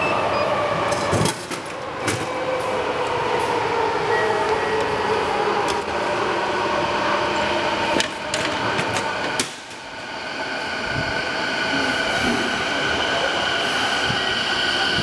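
Subway train running in the station: its motor whine falls in pitch over the first few seconds, then holds as a steady higher whine in the second half. A few sharp clacks come from the drink machine's dispenser flap being handled, about one, two, eight and nine seconds in.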